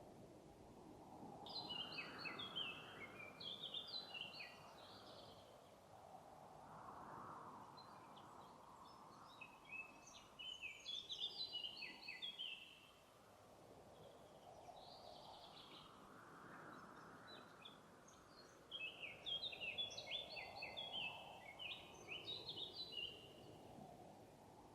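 A songbird in the forest sings three phrases of quick, falling notes, each lasting a few seconds, about eight seconds apart. A soft rushing background swells and fades beneath them.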